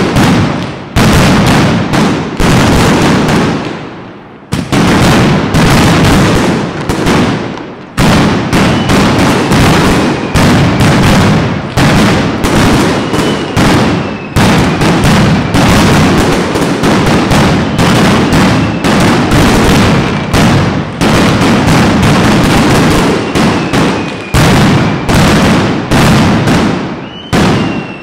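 Mascletà: strings of masclet firecrackers detonating in a dense, continuous barrage of loud bangs, broken by a few short lulls. A few faint falling whistles sound through it.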